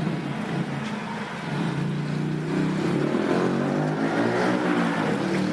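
Road vehicle engines pulling away and accelerating, rising in pitch and getting louder from about two seconds in, over traffic noise.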